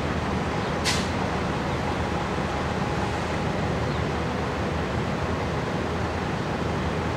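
Vintage Kässbohrer Setra coaches' diesel engines running as the buses pull past at low speed, a steady low rumble. A brief sharp hiss cuts in about a second in.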